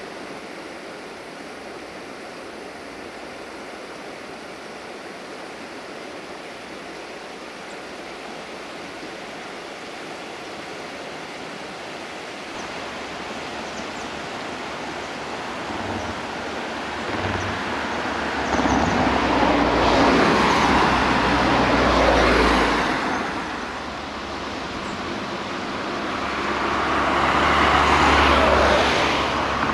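Steady rushing background, then two road vehicles passing one after the other, each building up with a low rumble and fading away, the second one near the end.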